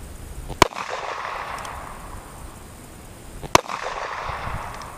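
Two gunshots from a Ruger Vaquero single-action revolver in 45 Colt with a 4.5-inch barrel, firing 250-grain cast bullets, about three seconds apart. Each shot is followed by about a second of echo.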